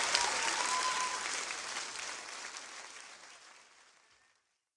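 Audience applauding, fading out steadily over about four seconds.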